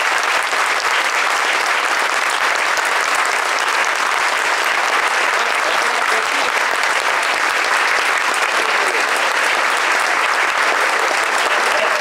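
Theatre audience and cast applauding, a steady dense round of clapping.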